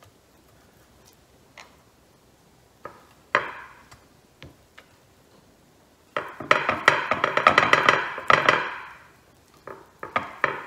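Hands handling crumbed schnitzels in a glass baking dish: a few light taps early on, then about three seconds of rapid crackling clicks as dry breadcrumbs are scattered and pressed onto the meat and glass, with another short burst near the end.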